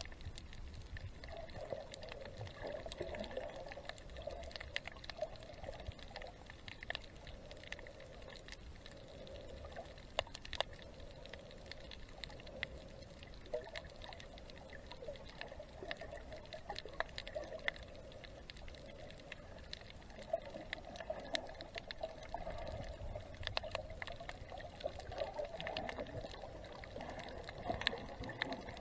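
Underwater water noise on a snorkeler's camera: water sloshing and gurgling, with many scattered sharp clicks throughout.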